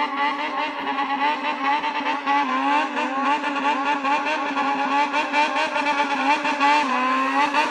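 Yamaha XJR400 air-cooled inline-four engine being revved in a bosozoku-style waltz-rhythm 'call', the throttle blipped over and over so the engine note wavers quickly up and down without stopping.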